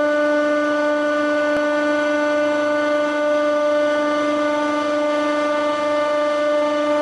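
Hydraulic press pump running with a steady, high, droning whine while the ram travels, played backwards. It cuts off suddenly at the end.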